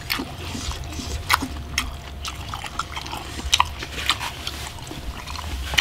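Cooked pig intestines torn apart by hand close to the microphone: irregular sharp crackles and snaps of the browned skin, over a steady low hum.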